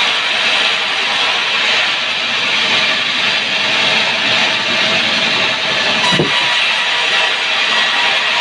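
Sawmill saw cutting through a sengon log with a steady, loud, hissing sound, and one brief knock about six seconds in.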